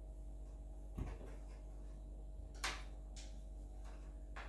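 A few light clicks and knocks from handling PC parts, spread out over a few seconds against a faint steady hum.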